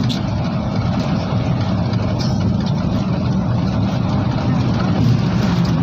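Steady low rumble of a car's engine and tyres, heard from inside the cabin while driving through a road tunnel.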